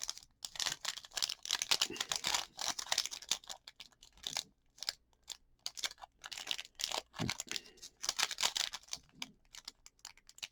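Trading-card pack wrapper crinkling and cards clicking and sliding against each other as they are handled. It comes in rapid crackly bursts with short pauses between them.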